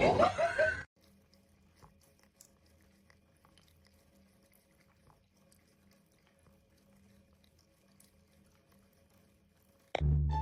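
A loud voice cuts off about a second in. Then comes near silence, with a faint steady hum and scattered faint clicks.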